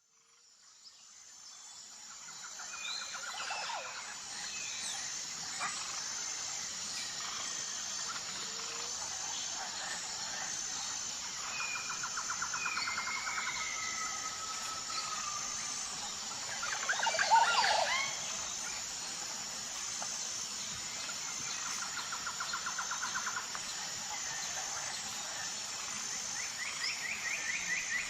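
Forest birds calling, with several quick trills and a few gliding whistles, over a steady hiss and a high, evenly pulsing buzz. It fades in over the first few seconds, and the loudest burst of calls comes about two-thirds of the way through.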